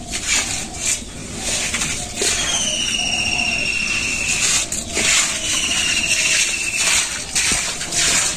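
A stick broom swishing and scraping through cow-dung water on a concrete yard, a stroke every second or two. A bird's slightly falling whistle of about a second repeats three times over it.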